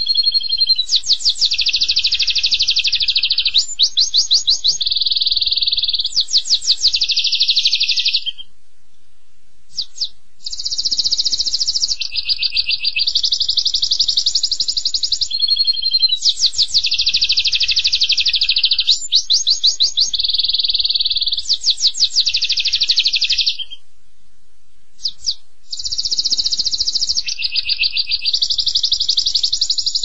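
A small songbird singing long high-pitched phrases of fast rolling trills and warbles, each phrase lasting over ten seconds, broken twice by pauses of about two seconds.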